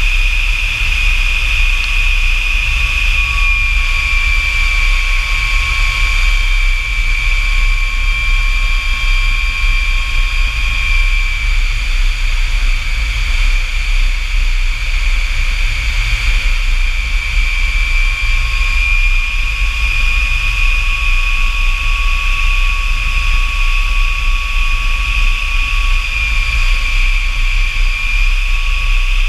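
F-100 Super Sabre's Pratt & Whitney J57 turbojet running steadily: a loud, high, slightly wavering whine over a deep rumble.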